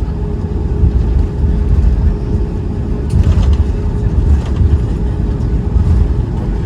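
Cabin noise of a Boeing 737 MAX 8 on the ground after landing: a steady low rumble with a steady hum under it, and a short rattle about three seconds in.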